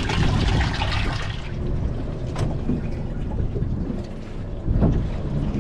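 Water splashing and trickling into a boat's live bait well holding a small whiting-type bait fish, strongest in the first second and a half. Wind rumble on the microphone and a couple of light knocks follow.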